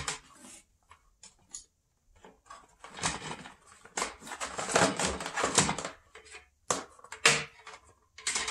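Power cord being unwound from a Craftsman shop vac: irregular rustling and scraping with light clacks and taps of the cord against the plastic canister and hose.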